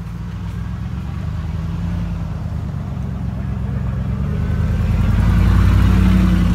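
Motor vehicle engine running nearby, a steady low hum that grows louder over the last couple of seconds.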